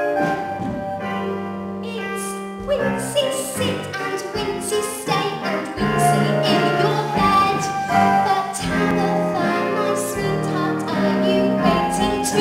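A song from a stage play: voices singing a melody over instrumental accompaniment with sustained low notes.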